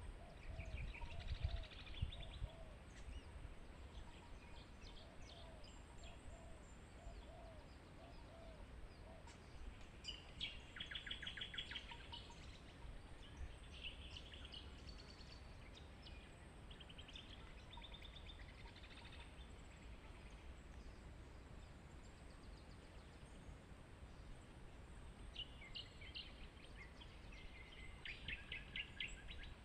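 Wild birds singing and chirping in intermittent phrases, with a rapid trill about ten seconds in and a busier stretch of song near the end, over a faint steady low rumble.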